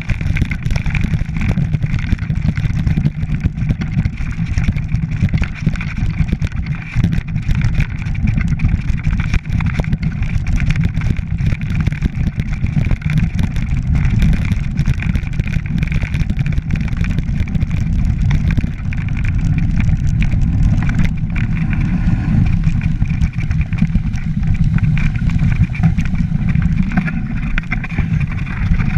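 Mountain bike rolling fast down a rocky track: a constant low rumble of wind and tyre noise on the bike-mounted camera's microphone, with frequent rattles and knocks as the tyres strike stones.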